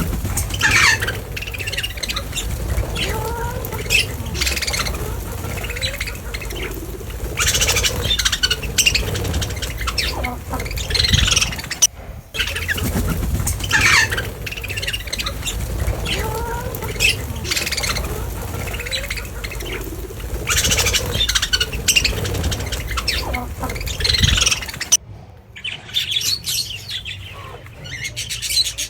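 A colony of waterbirds calling and squawking, many short harsh calls overlapping, over a steady low rumble. The sound breaks off briefly about twelve seconds in. Near the end the rumble drops away and only the bird calls remain.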